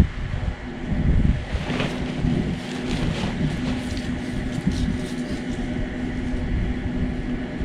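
Wind blowing over the microphone, with scattered rustles in the first few seconds and a faint steady low hum under it.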